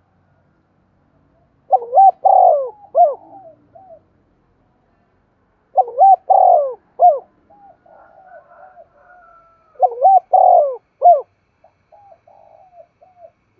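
Spotted dove cooing: three phrases a few seconds apart, each of three or four loud coos, with fainter, softer notes between and after them.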